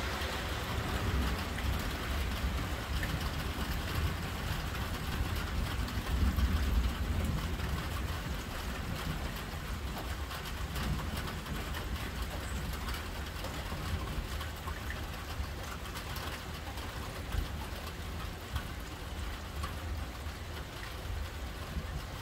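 Steady rain falling, with a low rumble of thunder underneath that swells about six seconds in.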